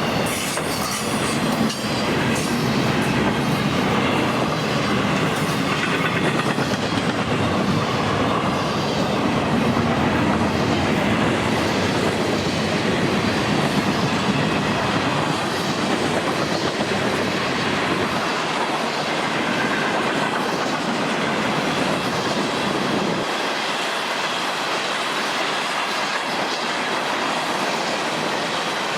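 Railroad cars rolling past, a steady rumble with the clickety-clack of wheels over rail joints. The deepest part of the rumble falls away near the end.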